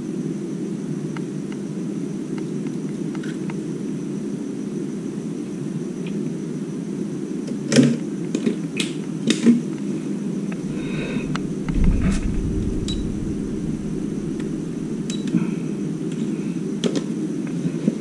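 Steady hum of the small cooling fans on a bank of lithium-ion battery tester modules, with a few sharp clicks about eight to nine and a half seconds in as cells and probes are handled. A low handling rumble joins from about twelve seconds in.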